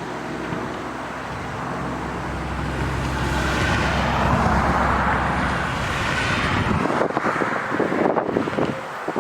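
A car passing on the road, its tyre and engine noise swelling to a peak about halfway through and then fading away.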